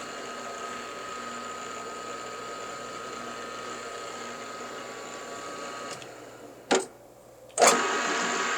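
Milling machine running steadily as the end mill is touched off on the workpiece, a steady hum with a high whine. About six seconds in the sound fades, there is one sharp knock, a brief quieter moment, then the machine sound comes back abruptly near the end.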